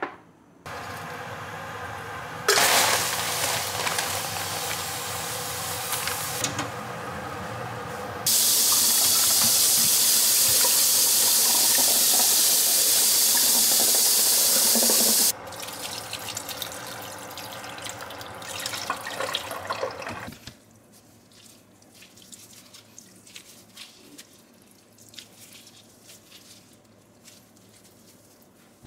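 Kitchen tap water running into the sink over blanched spinach in a stainless-steel mesh colander, rinsing it cool. The flow gets much louder and hissier for several seconds in the middle and stops about twenty seconds in; only faint small handling clicks follow.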